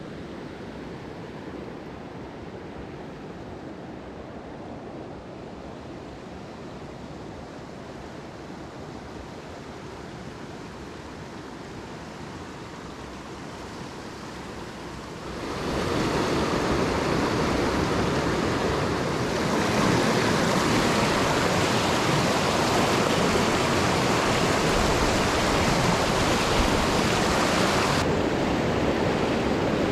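Mountain stream water rushing steadily over rocks; it grows suddenly much louder about halfway through and a little louder again a few seconds later, as if nearer a small fall or riffle.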